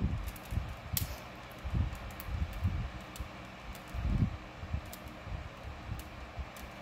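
Handling noise from hands untangling a beaded wire necklace: soft irregular thumps and a few small sharp clicks over a steady low background hum.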